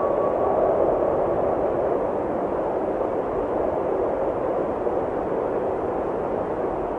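A steady hiss with a low rumble, fading slowly, in the pause between phrases of a recorded call to prayer. The last held note of the muezzin's voice dies away in the first second.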